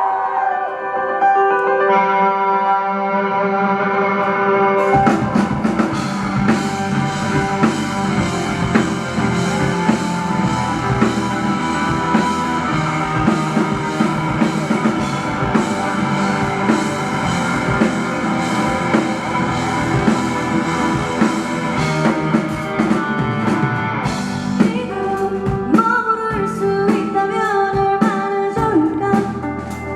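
Live rock band (guitar, bass, drum kit and keyboard) playing a song's opening. Held chords ring alone at first, and the drums and bass come in about five seconds in. Near the end the band drops back to a lighter passage, and the drum hits come back.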